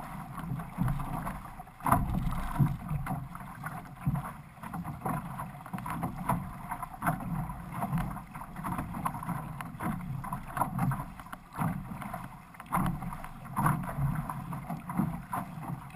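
Water rushing and splashing along the hull and outrigger float of a six-person outrigger canoe (OC6) under way in choppy water, with the uneven surging splashes of the crew's paddle strokes.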